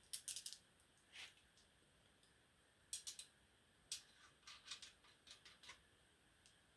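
Faint, scattered small metallic clicks and taps of steel nuts and washers being handled and threaded by hand onto the main bearing cap studs of an engine block, with a quick cluster of clicks about three seconds in.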